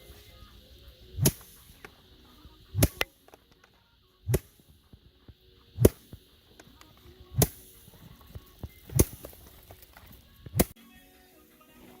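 Bundles of harvested rice being beaten by hand to thresh out the grain: seven sharp whacks at an even pace, about one every second and a half, with a quick double hit in the second stroke.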